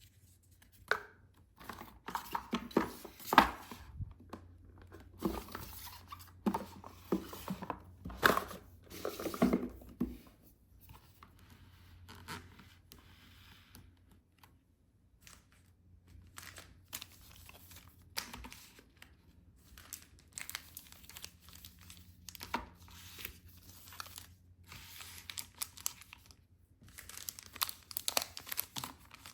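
Packaging wrap being torn open and crinkled by hand during an unboxing: irregular tearing, rustling and crackling, busiest in the first ten seconds and again near the end, over a faint steady low hum.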